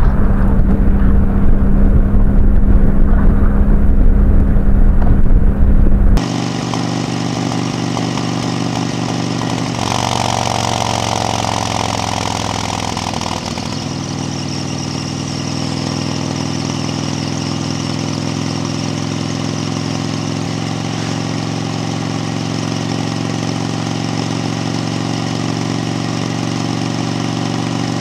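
Heavy wind buffeting on the microphone at highway speed, which cuts off suddenly about six seconds in. It gives way to a Harley-Davidson touring motorcycle's V-twin engine running steadily at cruising speed, its pitch shifting slightly a few times.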